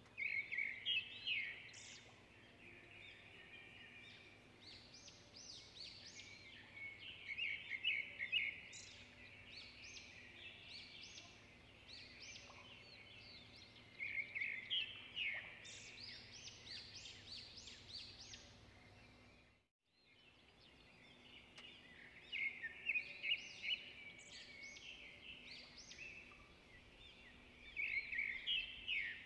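Birds chirping in repeated bursts of quick, high-pitched notes every few seconds, over a faint steady hum. The sound cuts out briefly about twenty seconds in.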